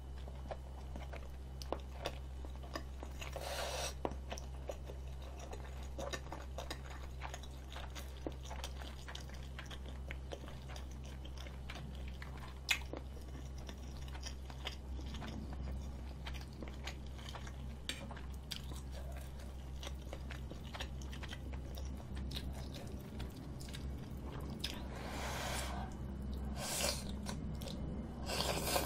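Close-miked chewing of spicy rabokki, rice cakes and ramen noodles, with many small wet mouth clicks. Near the end, noodles are slurped in a few noisy pulls.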